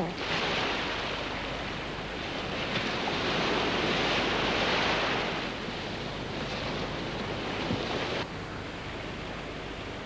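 Rushing wind, swelling in the middle and cutting off abruptly about eight seconds in, leaving a fainter hiss.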